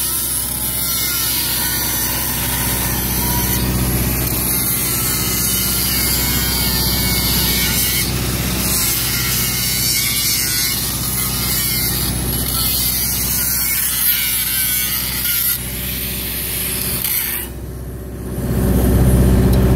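Angle grinder grinding at a steel pipe butt joint, running steadily with a wavering whine as the disc loads, and stopping about two seconds before the end. A low engine hum then swells up.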